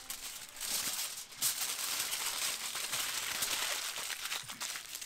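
A dog tearing the stuffing out of a plush toy doll, a continuous uneven rustling of ripped fabric and filling.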